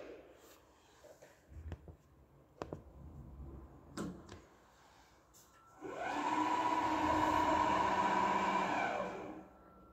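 A few button clicks. Then the electric drive of an Altendorf F45 sliding table panel saw starts abruptly about six seconds in, runs at a steady pitch for about three and a half seconds, and winds down and stops.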